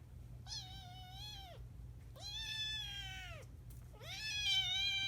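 Kitten meowing three times, each call about a second long, holding its pitch and then dropping off at the end.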